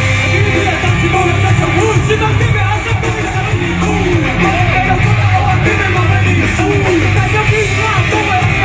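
Live band music played loud through a concert PA, with strummed guitar, a heavy low bass and a singing voice.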